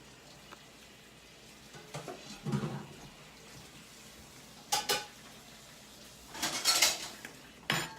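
Cutlery clinking and scraping on a plate while cutting into a piece of baked chicken, in a few separate clatters, the loudest about six and a half seconds in.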